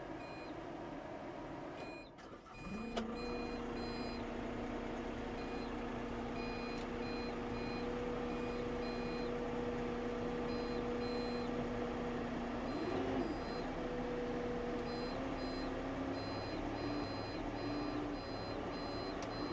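Wacker Neuson DV45 dumper's 36 kW Perkins diesel engine starting up about three seconds in and settling into a steady idle, its pitch rising slightly later on. Short electronic beeps from the machine sound on and off over the engine.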